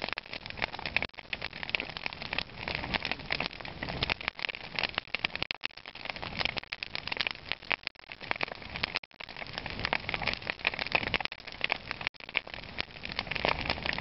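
Wood bonfire crackling: a dense, irregular run of sharp snaps and clicks.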